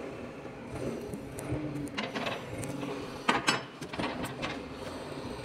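Machinery running with a steady hum, with irregular metal clanks and knocks, the loudest a little after three seconds in.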